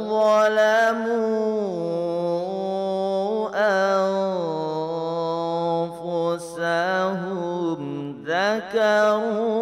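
A solo voice chanting Quran verses in Arabic, holding long ornamented notes that waver in pitch, with brief breaths about three and a half seconds in and again about eight seconds in.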